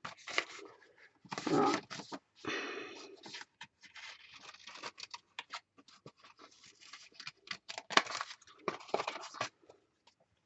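Paper rustling, scraping and tapping as small cut wallpaper pieces are handled and moved about on a craft page, in many short irregular bursts.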